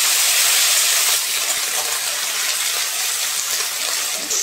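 Drumstick pieces and potato slices sizzling loudly in hot mustard oil in a steel kadhai, freshly added and being stirred with a metal spatula. The hiss eases a little about a second in and again near the end.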